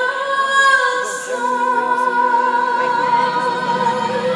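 Fireworks-show soundtrack played over park loudspeakers: singing voices holding long notes, sliding to a lower held note about a second and a half in.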